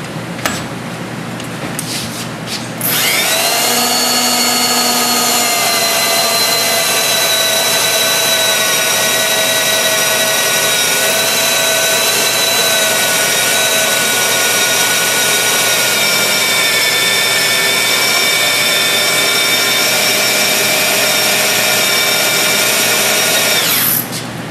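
Hand-held drill whining steadily as it cuts through a jig's drill bushing into an aluminium Harley-Davidson Twin Cam cylinder head, boring the hole for a 10 mm manual compression release. A few short clicks come first, then the drill starts about three seconds in, runs at an even pitch for about twenty seconds, and cuts off suddenly near the end.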